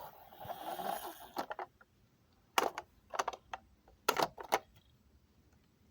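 A brief rustling hiss, then several sharp clicks and knocks in short clusters about a second apart.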